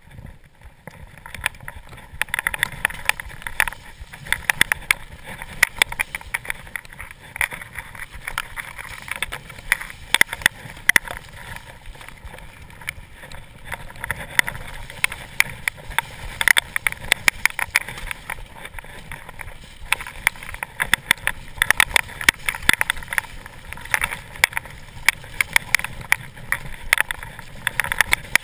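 Mountain bike ridden fast down a wet, muddy trail: a constant rattle of sharp knocks and clatters from the bike over rough ground, over the hiss of tyres through mud and slush, with a splash through standing water near the end.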